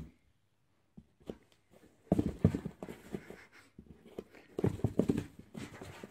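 A cat inside a cardboard box swats through a slot at a socked foot, setting off irregular knocks and scuffs on the box, starting about two seconds in.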